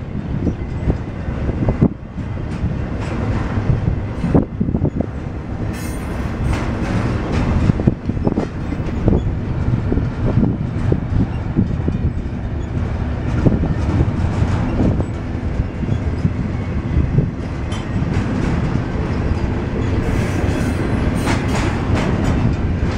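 Double-stack container well cars rolling past close by. Steel wheels rumble steadily on the rail, with a run of clicks as the trucks cross rail joints.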